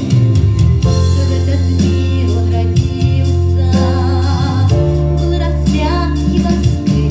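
Music: a song with guitar and bass, and a voice singing from a little past halfway.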